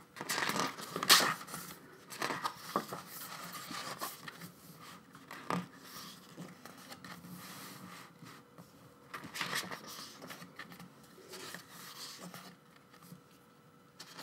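Pages of a K-pop album's photo book being handled and turned: irregular paper rustling and crinkling, sharpest about a second in.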